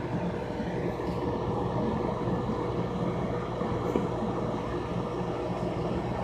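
Steady low hum with a rushing, bubbling hiss from running aquarium equipment such as the tank's pump and filter.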